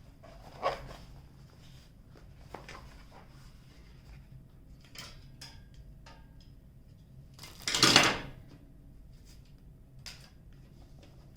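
Handling noises from objects being moved on a table: scattered small clicks and taps, with one louder scrape or rustle lasting under a second about eight seconds in.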